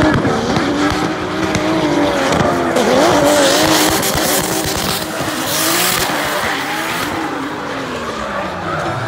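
Two drift cars sliding in tandem, their engines held at high revs with a wavering pitch over loud tyre squeal that peaks midway. Near the end an engine note drops away.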